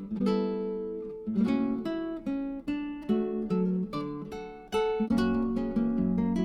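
Background music: acoustic guitar being played, plucked notes and chords ringing out at an unhurried pace.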